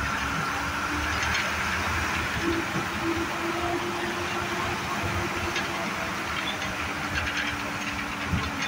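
Inside an MSRTC state-transport bus: the engine and road rumble run steadily with a faint steady whine, and loose body parts give short rattles, as the bus goes down a long descent.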